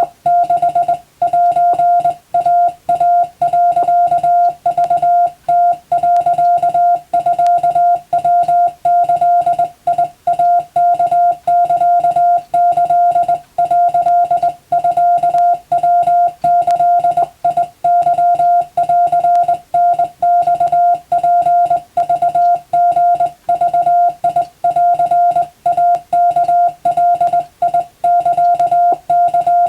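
Morse code sent as a single mid-pitched beeping tone, keyed in quick dots and dashes with short gaps between characters: Japanese wabun telegram text sent at exam-practice speed.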